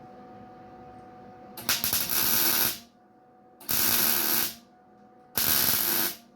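MIG welder laying three short tack welds on sheet steel, each a burst of steady hissing crackle about a second long, the first one starting with a sputter.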